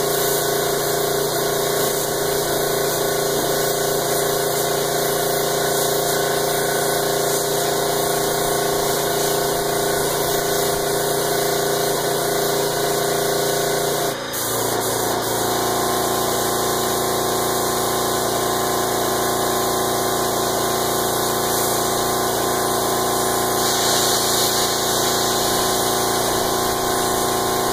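Small tankless direct-air diaphragm compressor running with a steady hum, and the continuous hiss of a gravity-feed spray gun spraying a coat of polyester. The compressor's bleed valve is cracked open so air flows constantly to spare the diaphragm. The hum changes slightly about halfway through.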